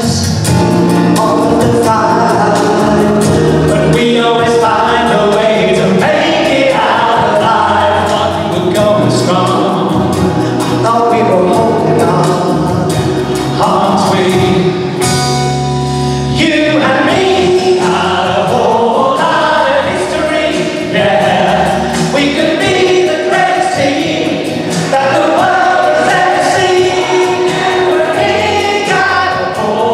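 A large choir singing a song together, many voices at once, loud and steady throughout.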